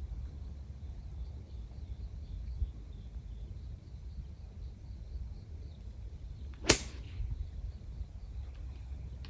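One sharp crack of a golf club striking the ball, about two-thirds of the way in. Under it, wind rumbles on the microphone and faint high chirps repeat in the background.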